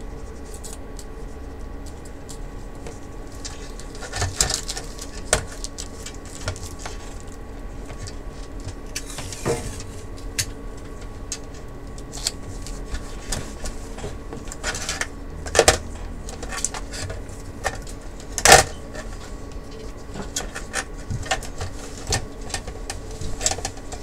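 Scattered clicks, taps and knocks of hands handling a disassembled LCD monitor's sheet-metal chassis and its cables, the loudest knocks about four, sixteen and eighteen seconds in, over a steady background hum.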